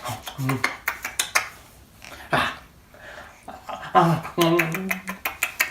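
Cutlery and dishes clinking on a table during a meal, as a run of short sharp clicks.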